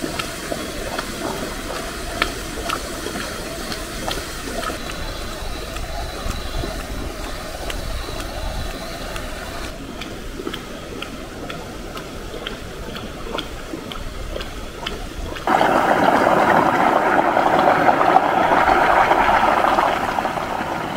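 Volcanic sulfur fumaroles hissing steam, with small scattered ticks and pops from the vents. About three-quarters through a louder, stronger hiss comes in, dropping back shortly before the end.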